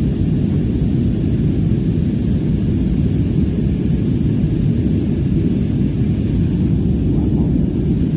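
Steady low roar of cabin noise inside an Airbus airliner in flight, from its jet engines and the airflow over the fuselage, even and unchanging.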